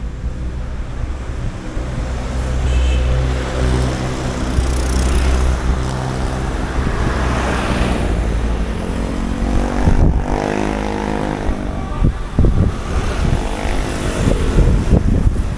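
Motor vehicles running past close by in street traffic. A low steady engine drone comes first, then a second engine with a higher hum about ten seconds in, and a few short knocks near the end.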